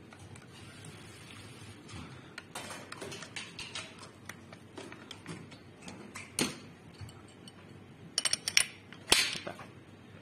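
Screwdriver turning small screws in a camera fluid head's mounting plate, with light scraping and irregular clicks, then a quick run of sharp clicks and one louder click about nine seconds in as the parts are handled.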